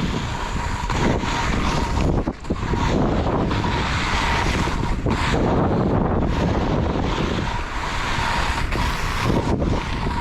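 Strong wind rushing over the microphone while skiing downhill in heavy wind, with a short drop in level about two and a half seconds in.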